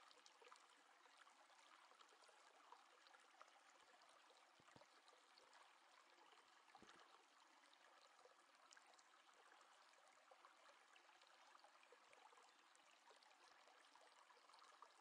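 Near silence: faint steady hiss of room tone with a few tiny soft ticks.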